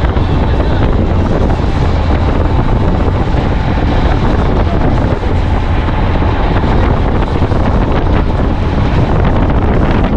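Wind buffeting the microphone on a boat underway, with the rush of the boat running through the water. A loud, steady roar that is strongest in the lows.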